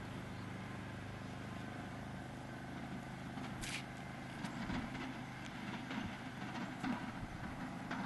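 A motor vehicle's engine running steadily at low revs, with a brief hiss about halfway and a few knocks in the second half.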